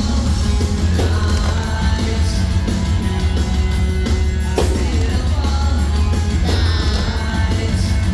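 Loud music with a singer over a heavy, steady bass, as the soundtrack of a fireworks show.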